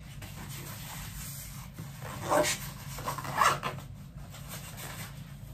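Fabric organizer case rustling and rubbing as a small item is pushed into one of its pockets, with two short rustles a little after two and three seconds in.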